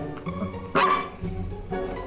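A Malinois puppy gives one short, sharp bark about a second in, over background music with a steady beat.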